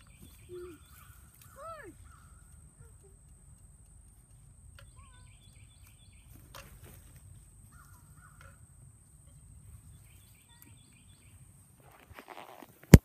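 Faint woodland ambience: birds calling a few times, one with a rising-then-falling call about two seconds in, over a steady high insect drone. Near the end, rustling and then one loud sharp knock as the camera is handled.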